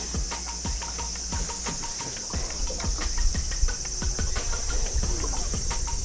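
Insects droning steadily in a high band, over irregular clicks and splashy sputters from a double-swisher topwater lure as it is twitched across the water surface.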